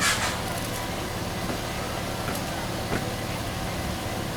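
A steady low engine hum, with a short rushing noise at the start and a sharp click about three seconds in.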